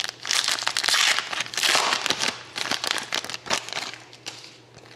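Foil trading-card pack wrapper crinkling as it is torn open and handled. There is a dense burst of crackling in the first two seconds or so, then lighter scattered crinkles.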